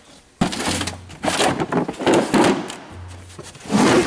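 Handling noise of tools being moved around in a toolbox: a sudden thunk about half a second in, then irregular clattering and rustling, loudest near the end.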